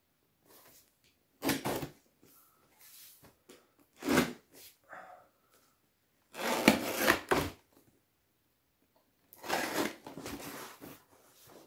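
Utility knife slicing along the packing tape and cardboard seam of a parcel, in four scraping strokes with short pauses, the longest and loudest about six and a half seconds in.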